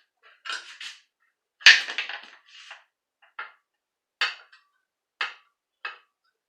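Irregular metallic clinks and scrapes, like parts or tools being handled, in about half a dozen short clatters. The loudest comes just under two seconds in, followed by single knocks about a second apart.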